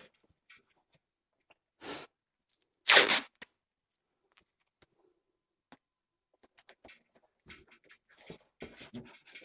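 Masking tape being pulled off the roll and torn: two short rips about two and three seconds in, the second louder, followed by light rustling and small handling clicks as the tape is laid on.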